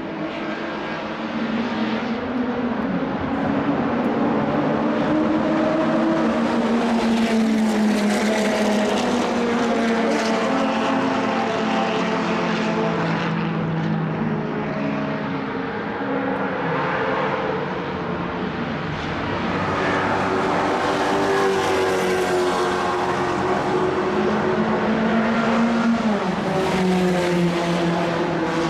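1960s racing car engine running hard on track, its pitch climbing as it revs and dropping sharply at gear changes, twice in the later part.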